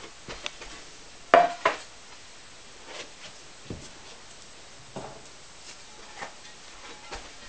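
Ceramic knocks and clinks inside an electric kiln as fired pieces and kiln furniture are handled and lifted out: a string of sharp knocks, the loudest pair about a second and a half in.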